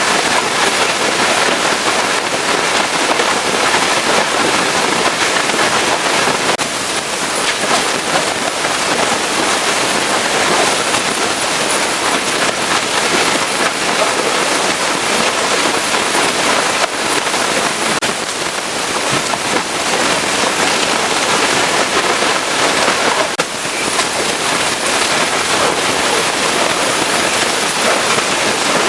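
Pressure washer jet spraying water onto a truck, a loud, steady hiss and spatter of water striking the surface.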